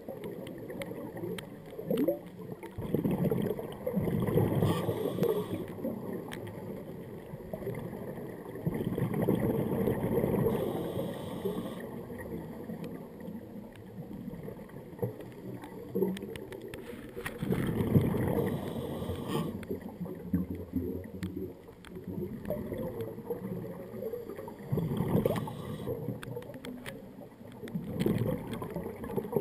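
Underwater scuba regulator breathing: gurgling bursts of exhaled bubbles every several seconds, with a fainter hiss of inhalation between them.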